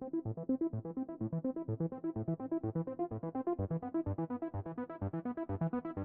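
Background music: a quick, steady run of pitched notes, about eight a second, with no singing.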